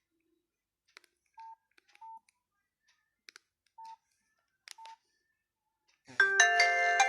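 Nokia 6500 Slide mobile phone: faint keypad clicks and four short single-pitch key beeps at uneven intervals, then about six seconds in the next ringtone starts, a bright chiming melody in several notes.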